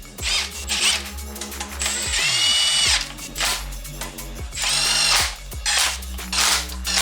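Cordless power tool running the cam-cap bolts down on a Honda K20 cylinder head in several short whining bursts, the longest lasting about a second from about two seconds in, each spinning up and winding down.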